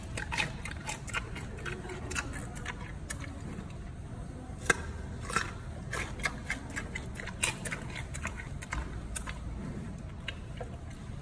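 A giant panda chewing pieces of raw carrot right by the microphone: many irregular crunches and clicks from its teeth.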